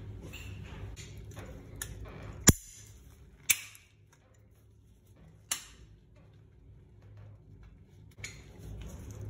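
Four sharp metallic clicks and knocks at a Sloan flush valve as a gloved hand works at it, the loudest about two and a half seconds in. A low steady hum underneath stops after that click and comes back near the end.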